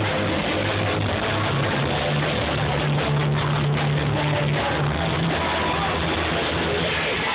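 Live rock band playing loud, with electric guitar, bass and drums, heard through a phone's microphone in the crowd.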